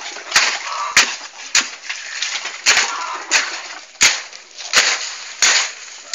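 Repeated sharp knocks, about eight of them roughly two-thirds of a second apart, from a wooden pole jabbed down into fresh concrete around a steel rebar cage in a column footing hole to pack it.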